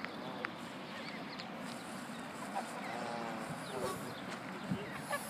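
Steady outdoor background noise with faint, scattered waterfowl calls, including a short wavering call about three seconds in.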